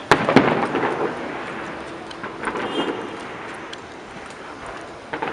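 Fireworks going off: a sharp bang at the start and another just after, then a fading rumble with scattered small crackles.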